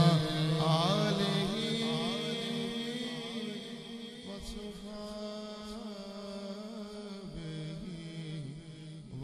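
Male voice singing an Islamic naat in long, held, wavering notes with ornamented glides between pitches, growing softer over the first few seconds.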